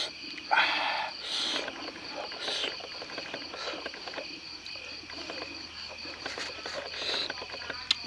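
Night insects such as crickets chirring steadily. In the first three seconds there are three short breathy hisses, the first the loudest, and soft clicks run through as fingers pick at grilled fish on the stone.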